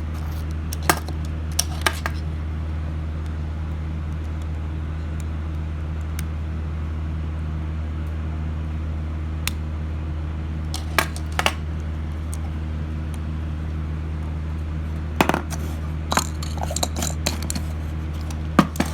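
Scattered light clicks and metallic taps from small hard parts being handled, such as tiny screws, a mini screwdriver and a sunglasses frame, over a steady low hum. The taps come singly or in pairs, with a short busier run near the end.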